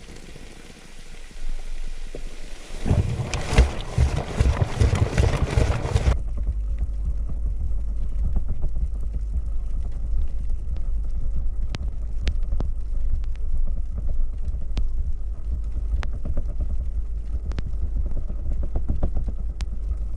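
Washing machine wash cycle heard from inside the drum: water sloshing and splashing as the load tumbles. About six seconds in the sound suddenly turns muffled, leaving a steady low rumble with scattered knocks.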